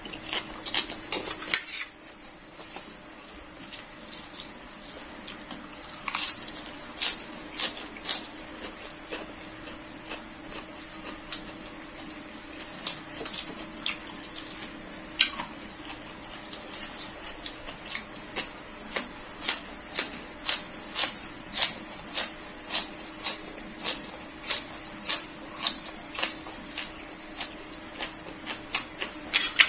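Crickets chirring in a steady high trill behind close-up eating sounds. There is a noodle slurp at the start, then crunchy chewing of raw greens, with crisp clicks about twice a second through the second half.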